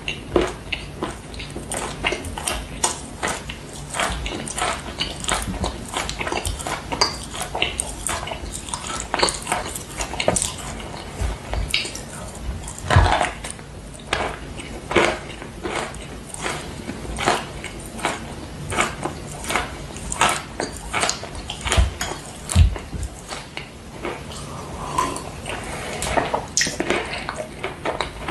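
Dry chalk being bitten and chewed close to the microphone: a steady run of sharp, crisp crunches, a few each second.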